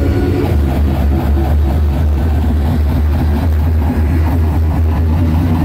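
Loud hardcore techno playing over a big club sound system, heard from inside the crowd: a heavy, steady deep bass under a fast, regular beat.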